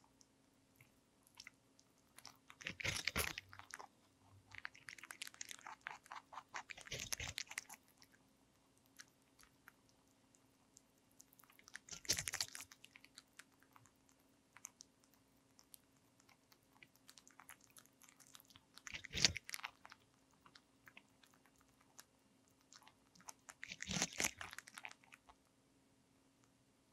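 A lionhead–Dutch mix rabbit biting and chewing a whole raw cucumber. Crisp crunching comes in bursts every few seconds, with quiet pauses between.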